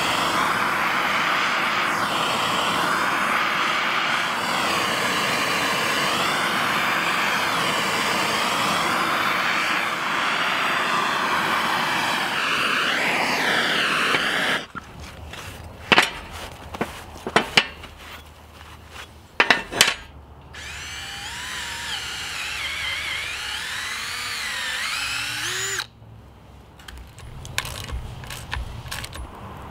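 Hand torch flame burning with a steady rush for about the first half as it heats the anvil to burn in a beeswax finish, then cutting off suddenly. A few sharp metallic clanks follow, and near the end comes the clicking of a socket ratchet tightening the hold-down clip's bolt.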